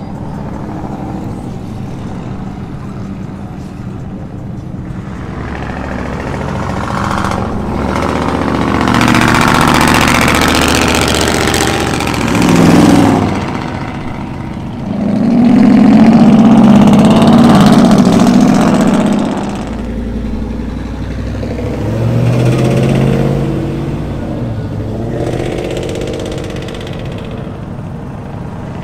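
Pickup trucks accelerating past one after another, each engine revving up and fading away; the loudest pass comes a little past halfway through.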